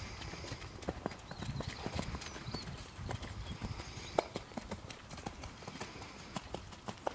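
A horse's hooves on a wet sand arena at a walk: a run of short, irregular hoofbeats.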